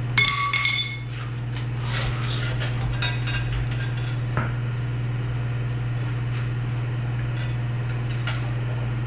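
A metal part struck or set down with a brief ringing clang just after the start, then a few scattered light metallic clinks and knocks, over a steady low hum.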